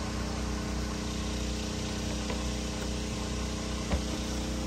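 A small engine or motor runs at a steady hum. A single sharp click sounds about four seconds in.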